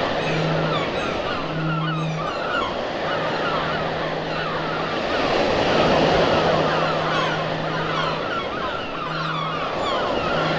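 Sea surf washing in a steady swell, with many short bird calls chattering over it and a low hum that comes and goes several times.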